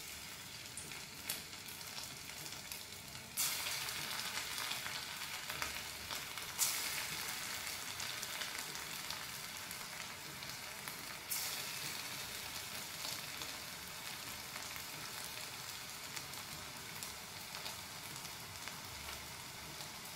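Hot oil in a kadai sizzling as lumps of kuttu (buckwheat flour) and potato pakora batter are dropped in to deep-fry. The sizzle jumps louder each time a new pakora goes in, about four times in the first half, then settles into a steady frying hiss.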